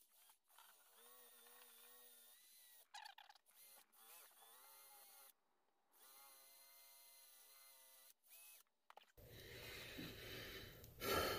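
Cordless drill spinning a wire brush wheel against a pocket knife blade to scrub off rust. It runs faintly in three short spurts, its motor pitch wavering a little under the load. Near the end a low steady hum comes in.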